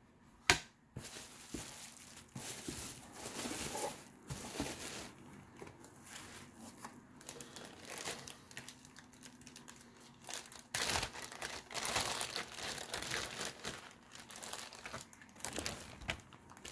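Clear plastic packaging crinkling and rustling as it is handled and pulled open, going on almost without pause, with a sharp click about half a second in.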